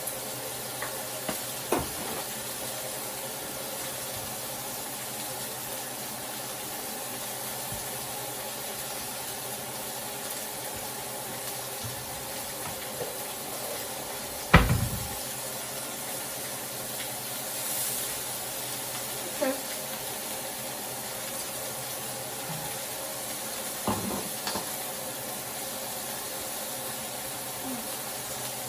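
Chicken sizzling in a greased grill pan as it cooks, a steady hiss. A few short knocks come through, the loudest about halfway.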